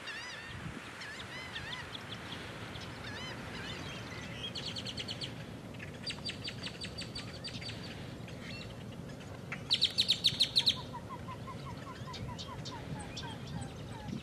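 Mixed calls of a flock of marsh birds: arching whistled notes over the first few seconds, then rapid runs of sharp high notes, the loudest about ten seconds in, followed by a quick series of lower notes. A low steady rumble lies underneath.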